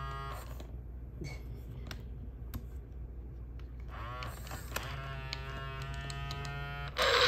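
Motors of an old Mattel D-Rex animatronic toy dinosaur running with a steady electric buzzing hum as it moves its head and jaw. The hum stops about half a second in, leaving a few faint clicks, and starts again about four seconds in with a short rising whine. A brief louder burst of sound comes near the end.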